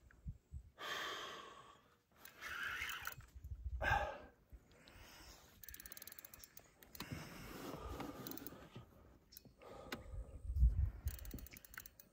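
A person breathing hard and sighing in a series of breathy bursts of about a second each, with a few knocks of handling noise near the end.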